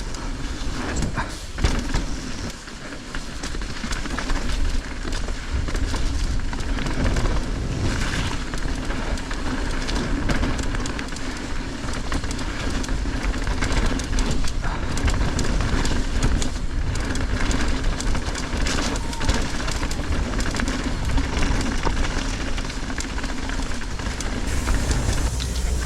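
Mountain bike riding down a wet trail: a steady rumble of tyres over dirt and roots, with the bike's rattle and many short clicks and knocks.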